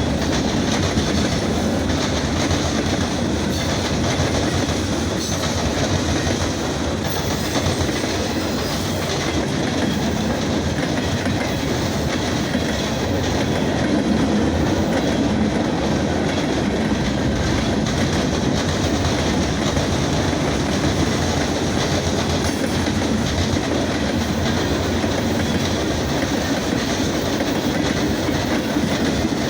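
Norfolk Southern freight train's cars rolling past at a steady speed, a loud continuous rumble of wheels on rail.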